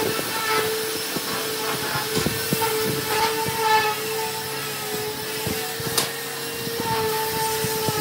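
A machine's steady hum holding one pitch, with light scraping clicks from a wooden stick stirring glue in a plastic cup.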